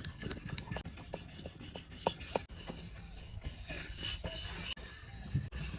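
Butterfly knife blade being sharpened, metal scraping on an abrasive in repeated rasping strokes.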